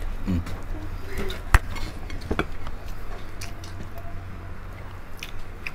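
Eating by hand: crispy pork tenderloin being torn apart and chewed, with scattered small crackles and clicks and one sharp click about one and a half seconds in, over a steady low hum.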